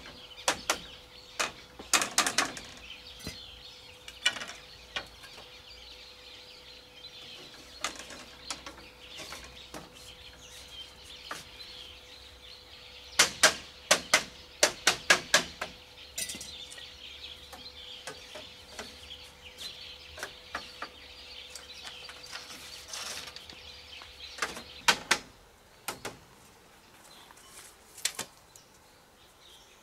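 Split bamboo strips clattering and knocking against a bamboo frame as they are woven into a coop wall: scattered sharp clicks that come in quick clusters near the start, about halfway through, and again near the end.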